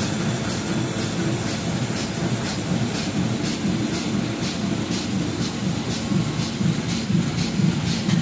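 Jiangsu Ruyu RYS10402B two-colour perfector sheetfed offset press running, printing 28 gsm paper: a steady mechanical din with a regular, even clacking that grows louder near the end.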